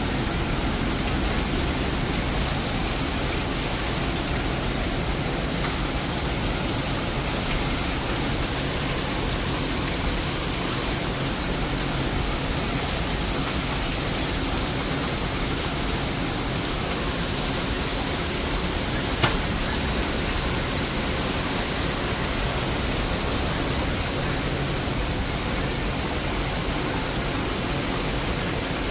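Heavy rain falling as a steady, even hiss, with a single sharp tick about two-thirds of the way through.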